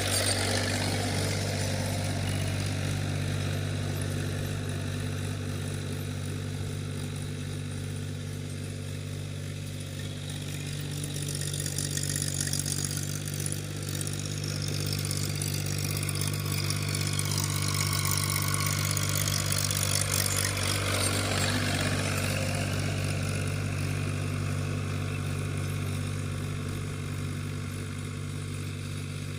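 Tractor engine running steadily while pulling a plough through a field, the low engine note rising slightly and easing off a few times.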